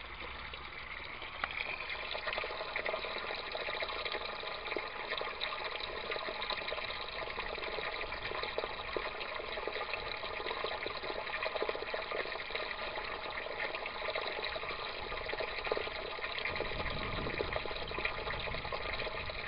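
Water running and splashing steadily through a small aquaponics grow bed and its U-siphon. The siphon keeps flowing instead of cutting off, while the pump slowly refills the bed.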